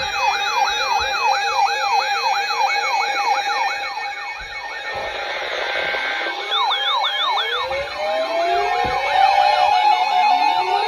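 Several electronic emergency-vehicle sirens sounding at once: a fast yelp sweeping up and down about three times a second over a steady tone, with slower rising wails joining about halfway through.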